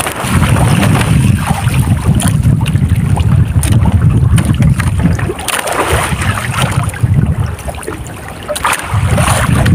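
Wind buffeting the microphone in the open on a fishing boat at sea: a loud, gusting low rumble that eases briefly twice, with a few light clicks.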